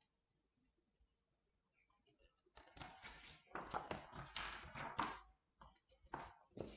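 Paper rustling and handling noise, like a page of a picture book being turned, in a cluster of irregular rustles that starts a little over two seconds in, with a shorter bit near the end.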